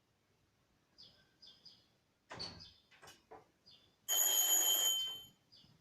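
Short high chirps repeating every second or so, a few rustles and knocks, then a loud bell-like ringing lasting about a second, starting about four seconds in.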